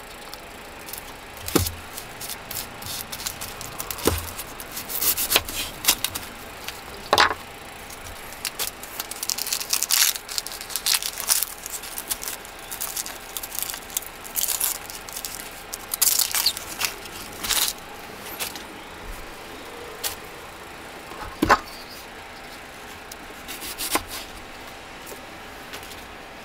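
Dry papery skin being peeled off a red onion by hand, crackling and rustling in short crisp bursts, with about four knocks on a wooden cutting board.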